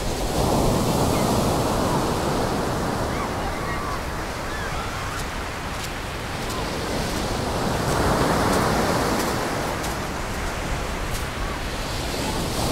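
Rough storm surf breaking on a sandy beach, a steady wash that swells twice as big waves break, about half a second in and again around eight seconds in.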